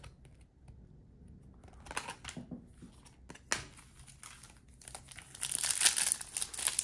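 Plastic wrapper of a trading-card pack being opened: a few light clicks and handling taps, then steady crinkling from about five seconds in as the wrapper is torn open.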